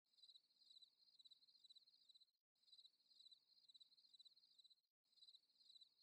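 Very faint cricket chirping, in quick pulsed trills, as a short looped clip that drops out for a moment about every two and a half seconds.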